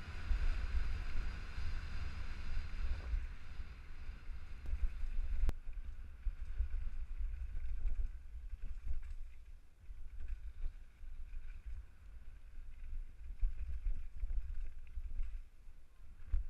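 Wind buffeting an action camera's microphone as an all-mountain bike rolls fast down a dirt trail, with tyre rumble and scattered rattles and knocks over the bumps. A single sharp knock comes about five and a half seconds in.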